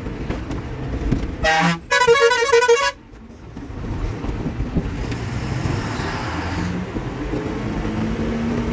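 Bus horn sounded twice: a short toot, then a longer warbling multi-tone blast of about a second. The bus's diesel engine runs steadily underneath and carries on after.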